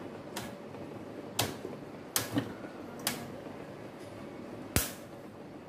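Half a dozen sharp, irregularly spaced clicks from the metal wire guard of an Điện Cơ Hải Phòng electric fan as its halves are fitted together and the rim clips snapped shut; the loudest comes near the end.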